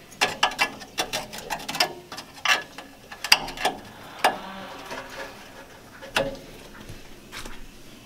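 Metal rattling and clicking as the burner tubes inside a Weber gas grill's firebox are worked loose by hand: a quick run of clicks in the first two seconds, then scattered single clanks, some ringing briefly.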